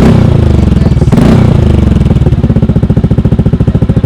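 Yamaha NMAX 155's single-cylinder four-stroke engine running through an Akrapovič full exhaust system. It is blipped twice near the start, then settles into a steady, evenly pulsing idle. The sound is likened to a big bike.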